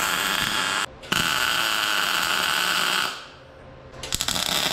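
MIG welder arc buzzing as tack welds are laid on steel under argon-CO2 shielding gas. It is cut off briefly just under a second in, runs steadily for about two seconds, stops for about a second, and strikes up again near the end.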